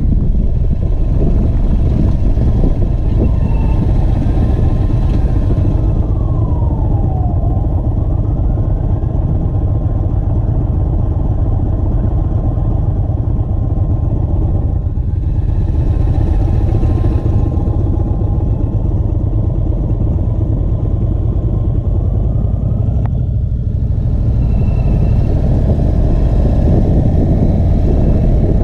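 Indian V-twin cruiser motorcycle engine running at cruising speed, a steady low rumble, with wind buffeting the helmet-mounted microphone. A faint whine rises and falls a few times over it.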